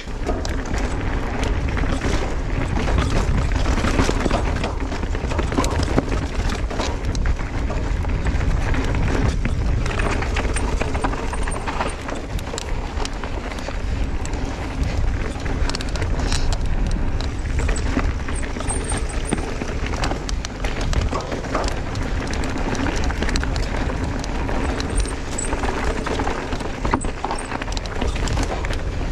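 A mountain bike ridden hard down a rough dirt trail: tyres rumbling over rocks and roots, with constant clattering and knocking from the bike and rushing air.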